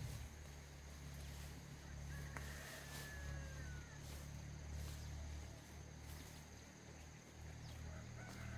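Quiet outdoor ambience: a steady low rumble and a thin, steady high-pitched tone, with a faint, drawn-out falling animal call about two seconds in and again near the end.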